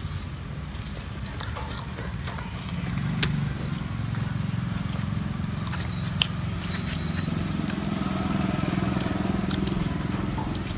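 Close-up eating sounds: chewing and crunching of crisp fried cakes, with scattered sharp crunches, over a steady low hum.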